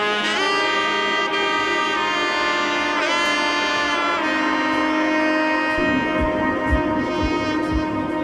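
Background music: a lead melody of held notes with bends in pitch, joined about six seconds in by a steady bass-drum beat of about two thumps a second.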